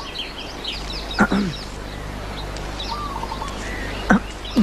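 Small birds chirping busily in quick high notes, broken twice by a brief loud sharp call, about a second in and again near the end.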